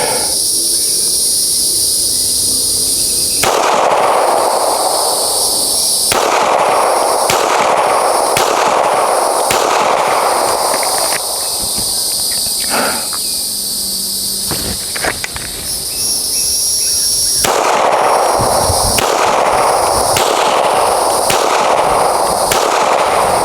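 Pistol shots fired in two quick strings of several rounds each, a few shots per second, over a steady high buzz of insects.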